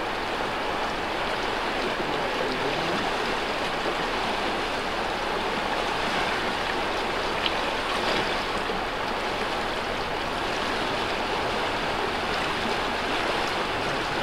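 Steady rush of river water flowing past.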